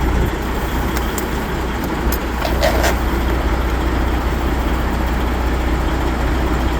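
Semi truck's diesel engine running steadily with a constant low drone under a wash of noise, with a few light clicks.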